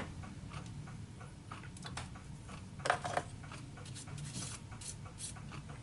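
Faint clicks and light metallic taps from hand adjustments at a small Taig bench lathe, over a low steady hum. There is a short cluster of sharper clicks about three seconds in.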